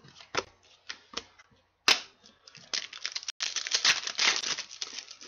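A hockey card pack's wrapper being torn open and crinkled by hand: a few scattered crackles, one sharp one about two seconds in, then dense crinkling through the second half.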